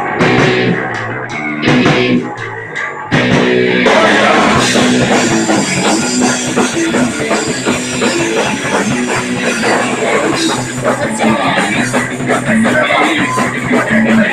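Live punk rock band playing: the guitar plays a riff in stop-start hits, then the full band with drums and cymbals comes in about three seconds in and plays on steadily.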